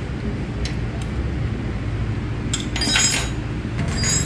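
Metal clinks and ringing taps of a spanner and bolts as an engine side cover is unbolted. There are a few light clicks in the first second, a cluster of ringing clinks about three seconds in, and more near the end.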